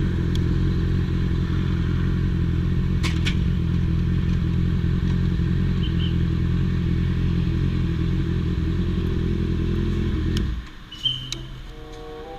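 Honda CB650F inline-four motorcycle engine running steadily at a constant low speed, then switched off about ten and a half seconds in, with a knock just after it stops.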